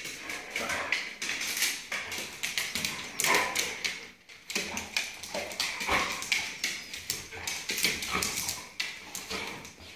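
Two dogs play-fighting: rapid taps and scuffling throughout, with brief dog vocalisations mixed in.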